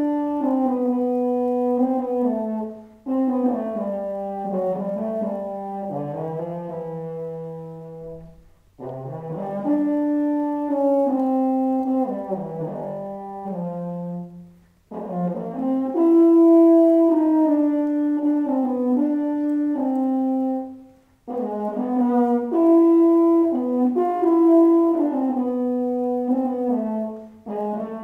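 Solo euphonium playing a sustained melody, one note at a time, in phrases of several seconds separated by brief pauses for breath.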